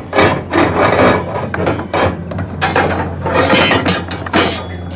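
Steel rebar scraping and clinking as a vertical bar is slid down through the plastic webs of stacked insulated concrete form blocks, rubbing past the staggered horizontal bars. It comes as a run of uneven scraping strokes, with a sharp clink near the end.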